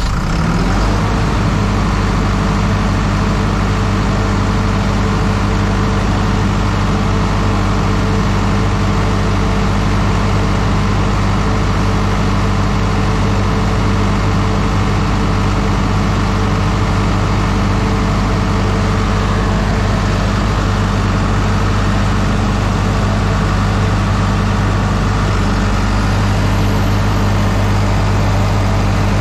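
Diesel generator set engine running steadily, settling into an even run in the first second after starting.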